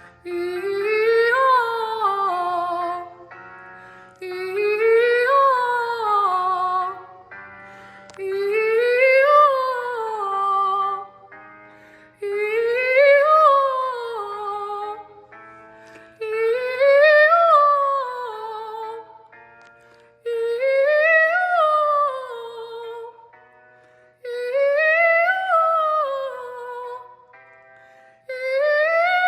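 A girl singing wordless phrases, each gliding up and back down in pitch, seven of them about four seconds apart, over steady held backing chords.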